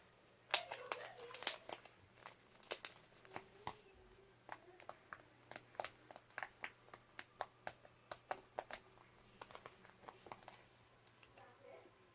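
Slime being squished and stretched by hand, making a rapid, irregular series of sharp clicking and popping sounds, dying away near the end.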